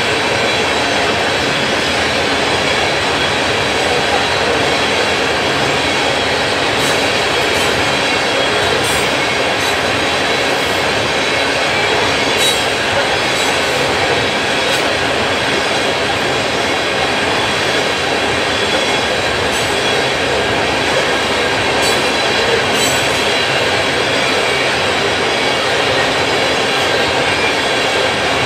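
Freight train of tank cars rolling past at steady speed: continuous steel-wheel rumble and rattle on the rails, with a thin steady wheel squeal and a few brief sharp clicks from the wheels and trucks.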